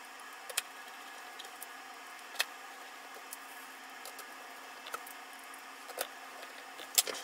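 Scattered sharp clicks and taps of a small driver and steel M4 screws against a 3D-printed plastic clock frame as the screws are fitted, about half a dozen in all, the loudest near the end, over a faint steady hiss.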